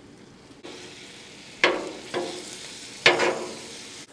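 Pulled pork sizzling on a hot Blackstone steel griddle, getting louder about half a second in, with two sharp metal clanks of tongs against the griddle about a second and a half apart, each ringing briefly.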